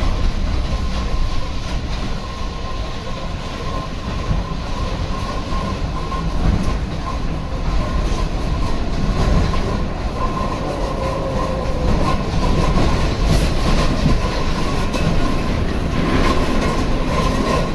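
Hong Kong Light Rail vehicle running along the platform at close range: a low rumble from the wheels on the rails and a steady high whine throughout, with sharp clicks and knocks in the last few seconds.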